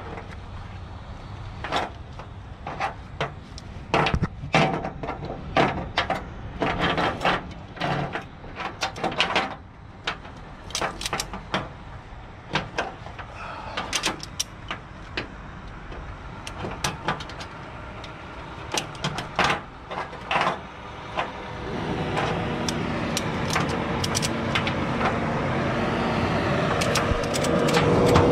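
Sharp metallic clicks and clanks, irregular and bunched together, as a tie-down hook and ratchet are worked at a car's wheel on a car hauler's perforated steel deck. In the last several seconds a steady engine hum comes up and grows louder.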